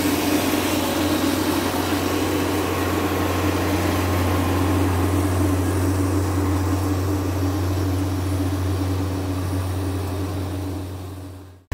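Kioti RX7320 tractor's diesel engine running steadily under load as it pulls a homemade chisel plow through the ground, fading out near the end.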